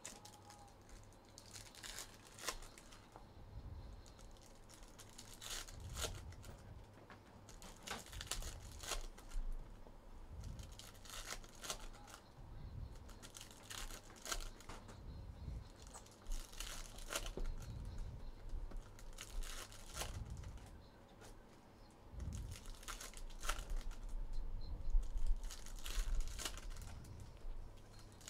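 Foil trading-card packs being torn open and their wrappers crinkled, with the cards inside handled; irregular bursts of tearing and crinkling.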